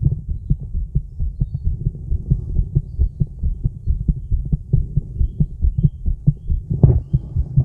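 A woman's heartbeat picked up by a microphone pressed against her chest: a steady lub-dub rhythm of low, dull thuds, with one louder thump about seven seconds in.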